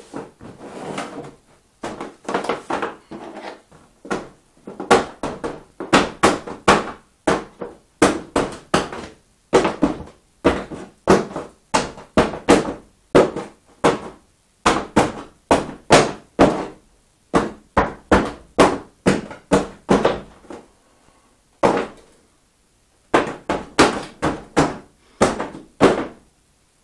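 Hands working over a tape-covered part: a long run of short thumps and scuffs, about one and a half a second, with two brief pauses.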